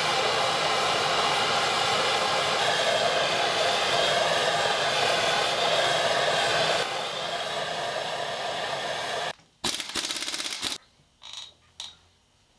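Power impact wrench running and hammering on a stuck 11/16 cylinder-head bolt of a Ford 351M V8 for about nine seconds, easing slightly partway through. It then stops, and a short second burst of rapid impacts follows about a second later.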